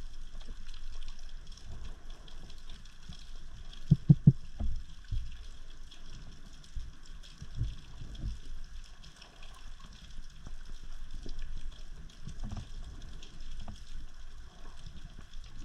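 Underwater ambience during a spearfishing dive: a steady faint crackle and hiss with low rumbling. About four seconds in comes a quick run of three loud low thumps.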